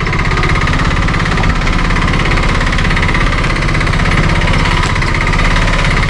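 Auto rickshaw engine running steadily with a fast low pulsing as the three-wheeler climbs a steep, rough off-road track.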